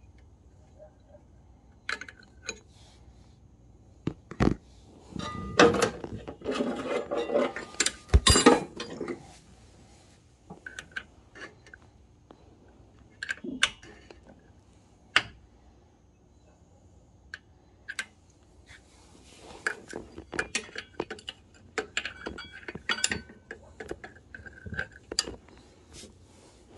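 Metal wrench clinking and clanking against the carburetor nuts and engine parts while working a carburetor loose. Scattered sharp clinks, with a dense stretch of rattling and clanking about five to nine seconds in and another near the end.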